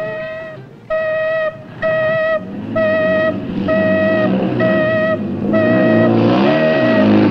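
Mine emergency alarm horn sounding in short, evenly repeated blasts, about one a second, signalling a disaster underground. A lower, wavering sound swells beneath it from about halfway through and is loudest near the end.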